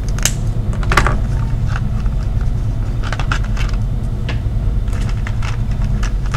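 Steady low background rumble, with scattered light clicks and scrapes over it.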